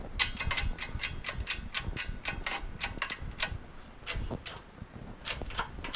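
Hand-pumped bottle jack of a 20-ton shop press being stroked by its pump handle, giving a rapid run of sharp metallic clicks about four a second that thins out after about three and a half seconds. The jack is pressing a bearing retainer ring onto a Ford 9-inch axle shaft.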